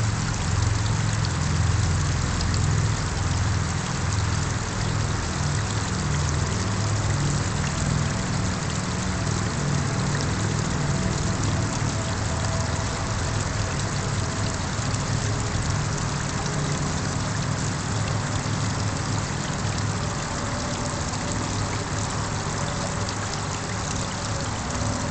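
Small garden-pond waterfall splashing steadily into the pond, with a low rumble underneath.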